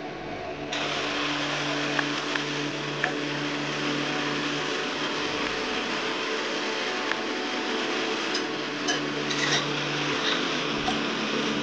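Sliced shallots deep-frying in hot oil in a pan: a steady sizzle with scattered pops, crackling more densely near the end, over a steady low hum.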